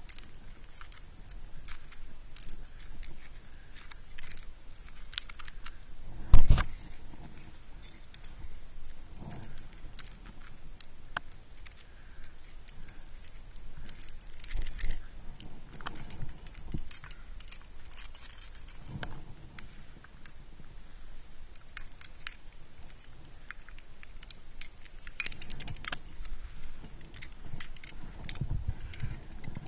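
Climbing gear clinking and jangling: metal carabiners and nuts on a climber's rack knocking together as he moves, with irregular clicks throughout. One much louder thump about six seconds in, and a flurry of rattling near the end.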